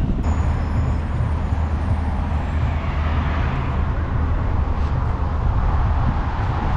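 Street traffic: a vehicle passing close by, its noise swelling through the middle and easing off, over a steady low rumble.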